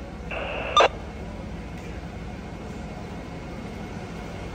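A half-second burst of two-way radio static about a third of a second in, ending in a sharp loud click, over a steady low rumble of street noise and idling apparatus.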